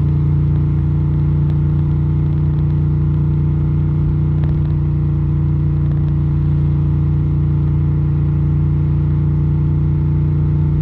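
2023 Moto Guzzi V7 Stone 850's air-cooled transverse V-twin running through a Mistral short exhaust. It is held at a steady engine speed with no revving.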